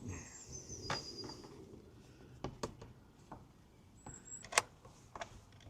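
Scattered light clicks and taps of motorcycle parts and tools being handled during reassembly, the sharpest about 4.6 seconds in, with a couple of faint high chirps, one at the start and one about 4 seconds in.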